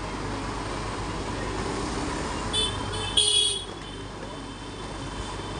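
Steady street traffic noise, with a short high-pitched vehicle horn toot about two and a half seconds in and a louder, longer toot just after three seconds.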